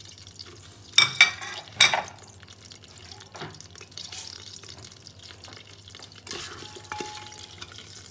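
Whole spices (bay leaves, peppercorns, cardamom, fennel seeds, cinnamon) frying in hot oil and butter in a steel pot, with a steady soft sizzle. A spoon stirs them, scraping loudly against the pot twice about one and two seconds in.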